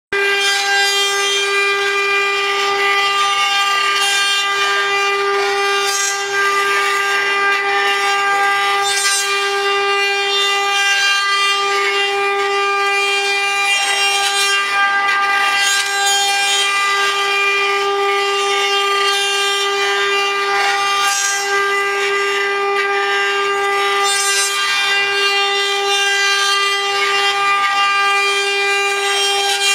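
JCUT 2415-8R multi-head CNC router with rotary axes carving wood: its spindles hold a steady high whine at one pitch with overtones, over the rough rasp of the bits cutting the wood. Every few seconds the cutting swells briefly into a sharper, hissing scrape.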